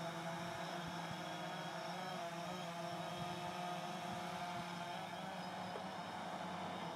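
Quadcopter drone (DJI Phantom) flying low, its motors and propellers giving a steady buzzing hum made of several tones that waver slightly in pitch as the motors adjust speed.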